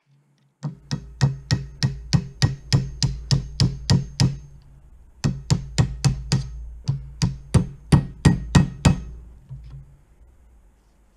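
Hammer tapping a thin metal punch to drive out an old pin holding a musket barrel in its wooden stock: about two dozen quick, light metallic taps, roughly three a second, in two runs with a short pause between them.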